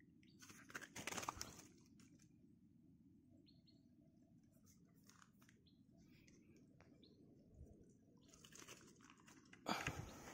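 Close crunching and rustling of the phone being handled as it moves over mud and plants, in two short bursts about a second in and near the end, with faint scattered clicks between them.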